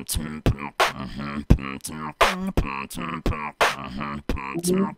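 Human beatboxing into a microphone: sharp snare-like hits about every 0.7 s with quicker clicks between them, over a hummed bass line.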